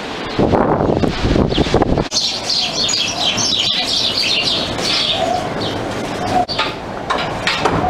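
Low rumbling noise on the microphone for the first two seconds, then a flurry of many small birds chirping rapidly for a few seconds.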